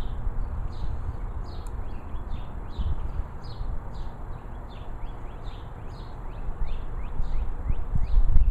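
Wind buffeting the microphone in a low rumble, with a high, short, downward-sliding chirp repeating about twice a second.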